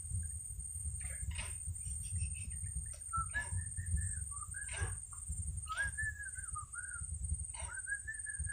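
A bird calling: repeated short whistled phrases that bend up and down, with sharp chirps between them, over a steady high-pitched insect-like drone and low rumbling noise.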